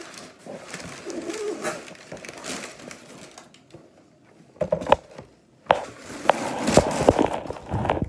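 Large cardboard shipping box being opened and unpacked: flaps rustling and scraping, then, after a brief lull about halfway through, a run of sharp knocks and clatters as the contents are pulled out and handled.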